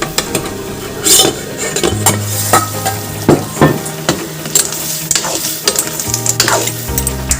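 Food sizzling as it fries in a pan, stirred with a utensil that clinks and scrapes against the pan in irregular knocks.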